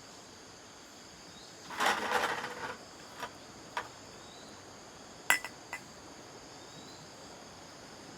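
Steady chirring of insects, likely crickets. About two seconds in comes a short rattling clatter, and a few sharp clicks follow over the next few seconds.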